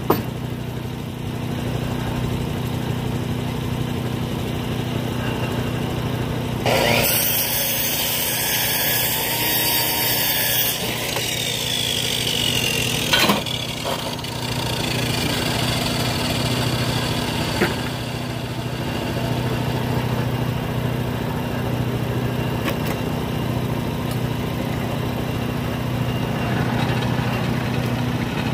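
Timbery M100 portable band sawmill's small gasoline engine running steadily, with a louder hissing stretch of about four seconds beginning about seven seconds in and a couple of sharp clicks afterwards.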